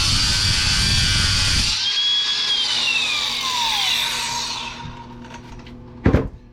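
A power tool's abrasive cut-off wheel grinding into a steel screw, switched off a little under two seconds in; its whine then falls steadily in pitch as the wheel spins down. A single sharp knock near the end.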